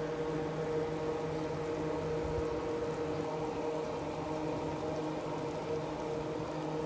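Large wok of meat stew boiling hard, its broth bubbling, over a steady low hum.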